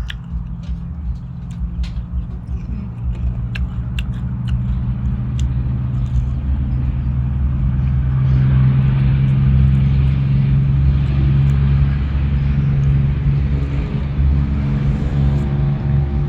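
A motor vehicle's engine running with a steady low hum, growing louder over the first half and holding there. A few sharp clicks come in the first few seconds.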